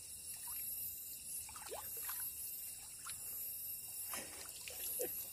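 Water sloshing, splashing and dripping as a landing net holding a freshly caught catfish is lifted out of the water, with scattered short splashes and drips.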